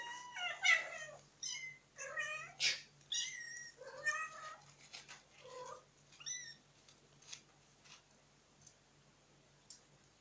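Kittens mewing in many short, high-pitched calls that bend in pitch, coming thick and fast at first and thinning out after about seven seconds, with a few faint clicks.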